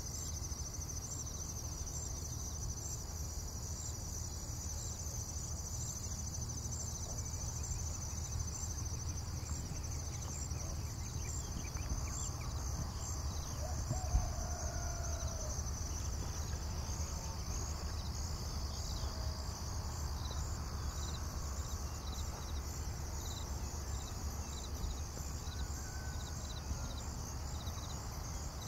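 Insects trilling steadily at a high pitch, pulsing in a regular rhythm, over a steady low background rumble. A single knock sounds about halfway through.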